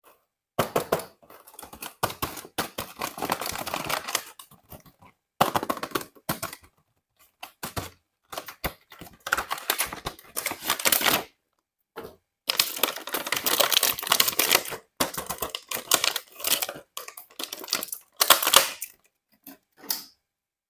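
Toy packaging and plastic toy parts being handled and unwrapped: dense crackling and clicking in bursts of a second or more, broken by short silences.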